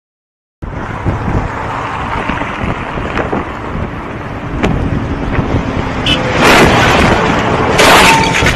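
Wind rushing over a cyclist's camera microphone at speed, starting after a brief silence. Near the end come two louder surges of noise and sharp clatter as the bicycle crashes and tumbles on the road.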